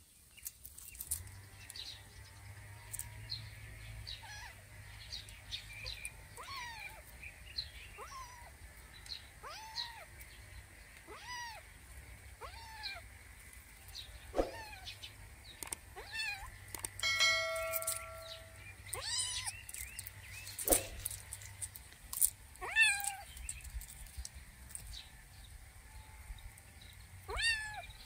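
Kitten meowing repeatedly in short calls, about one every second or two, with a pause of a few seconds before one last meow near the end. Birds chirp faintly in the background.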